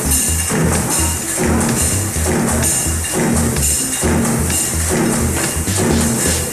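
Background music with a steady, fast beat: a pulsing bass line and tambourine-like ticks.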